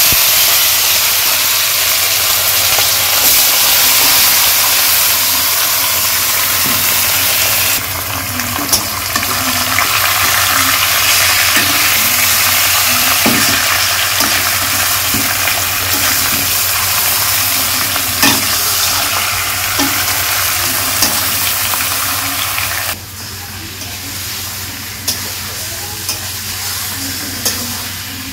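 Marinated chicken pieces and potatoes sizzling loudly in hot oil in a karahi, a sudden burst of sizzling as the meat hits the oil, then stirred with a metal spatula that clicks and scrapes against the pan. The sizzle steps down in loudness about eight seconds in and again a few seconds before the end.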